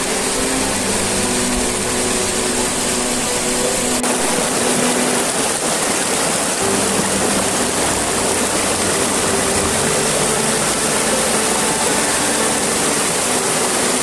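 Water of a small waterfall rushing and splashing over rocks, close to the microphone: a loud, steady hiss.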